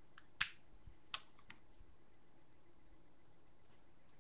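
A few short, sharp plastic clicks and taps, the loudest about half a second in, as eyeshadow compacts are handled.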